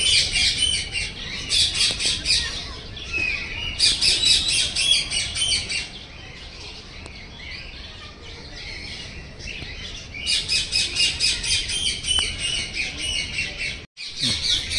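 A group of birds calling: rapid, harsh, repeated chattering in bursts of a few seconds, with a quieter lull in the middle. The sound breaks off for an instant near the end.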